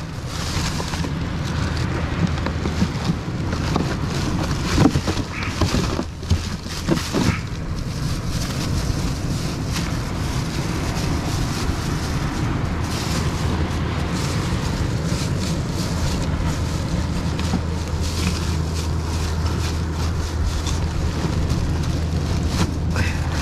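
Wind buffeting the microphone in a steady low rumble, with plastic bags crinkling and rustling as hands rummage through a cooler of bait, mostly in the first seven or eight seconds.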